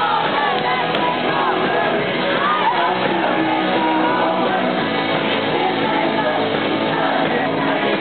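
A rock band playing live with electric guitar, with singing and shouted voices over the music.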